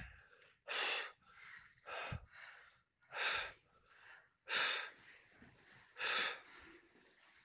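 A person breathing hard close to the microphone: about five loud breaths, roughly one every second and a half, as they catch their breath.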